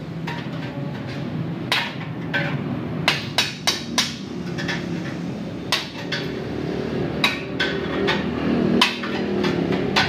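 Hammer striking metal: about a dozen sharp, irregular blows, some ringing briefly, over a steady low hum.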